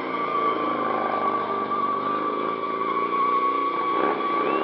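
Harley-Davidson cruiser motorcycle engine running hard as the bike circles in a stunt, its pitch wavering with the throttle, over a steady high squeal from the rear tyre. Near the end a second squeal rises in pitch.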